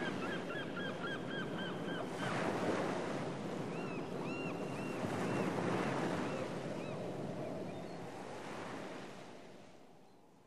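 Surf sound effect: waves breaking in a steady rush, with birds calling over it, first a quick run of short calls, then a few slower, arched calls a few seconds in. It all fades out over the last couple of seconds.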